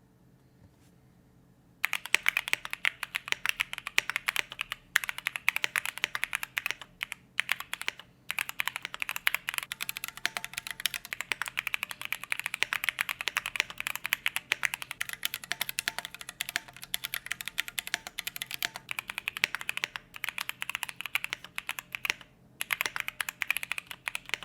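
Keychron Q1 mechanical keyboard with an aluminium case, Gateron Yellow switches and a few acoustic modifications, typed on quickly and steadily as a sound test. The keystrokes start about two seconds in, with a few brief pauses.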